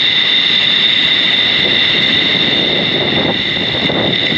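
Surf washing and rushing through the shallows, with wind on the microphone and a steady high-pitched whine underneath.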